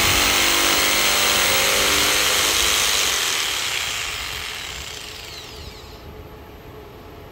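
Corded jigsaw sawing through a hardwood board, then switched off about three seconds in, its motor winding down with a falling pitch over the next few seconds.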